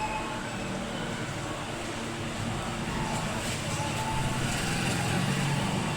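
Motor vehicle engine running steadily, getting louder in the second half.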